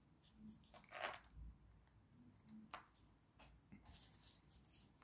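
Near silence, with a few faint clicks and rustles of hands handling a small plastic action-camera lens and a pair of pliers.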